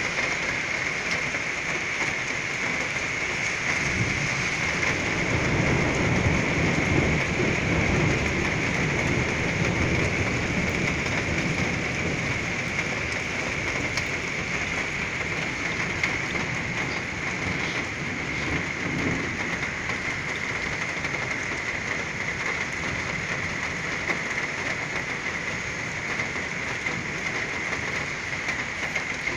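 Heavy rain falling steadily, with a long low rumble of thunder that builds about four seconds in and fades over several seconds. A weaker rumble follows later on.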